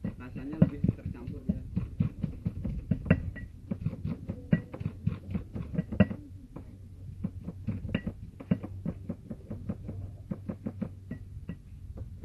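Stone pestle pounding and grinding spices in a stone mortar to make a smooth spice paste: a steady run of dull knocks, about three a second, with a short pause partway through.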